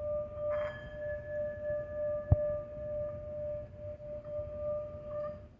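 Tibetan singing bowl ringing continuously: one steady tone with a few higher overtones, its level swelling and fading slightly. A single sharp knock sounds a little over two seconds in.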